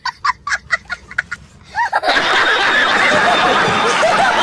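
A toddler laughing in quick, high bursts, then from about two seconds in a studio audience laughing loudly together, with clapping.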